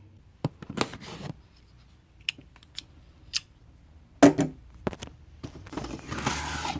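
Utility knife cutting and scraping at a cardboard box and its tape: scattered sharp clicks and scrapes, the loudest a little past four seconds, then a longer rasping slice near the end.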